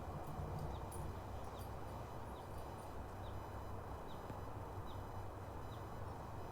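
Steady background hiss with a low hum, and a faint short high chirp repeating evenly about every 0.8 seconds.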